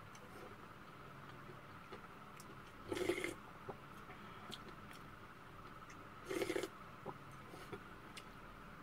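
Close-up eating sounds of a man spooning up bean sprout soup and rice with a wooden spoon: quiet chewing with small spoon clicks, and two short, louder mouth noises about three seconds in and again near six and a half seconds, over a faint steady hum.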